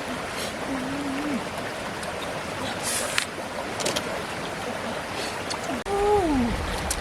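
Steady rush of flowing stream water, with two short wordless voice sounds: one about a second in and a falling one near the end.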